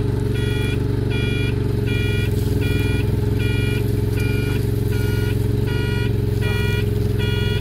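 Forklift backup alarm beeping steadily, about one short beep every 0.7 seconds, over the forklift's engine running.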